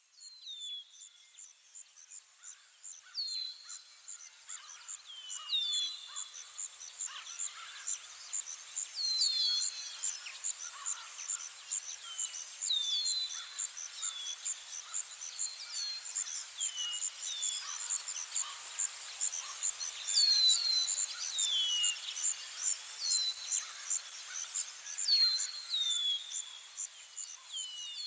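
Nature ambience of birds and insects: a fast, steady, high-pitched insect trill runs throughout, with short bird chirps that drop in pitch, often in pairs, every second or two. It fades up over the first few seconds.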